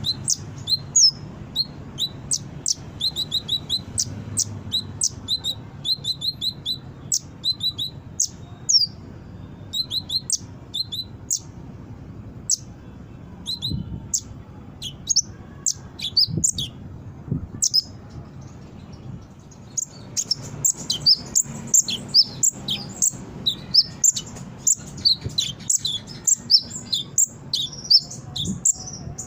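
Kolibri ninja (konin) sunbird singing energetically, a fast run of sharp, high chirps and twitters. The song thins briefly past the middle, then comes back as a denser twittering.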